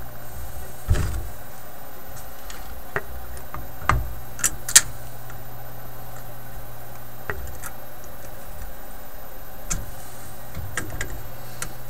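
Scattered small clicks and taps of needle-nose pliers and wire leads against a metal tube-radio chassis, two sharp clicks a little under halfway through being the loudest. A steady low hum runs underneath.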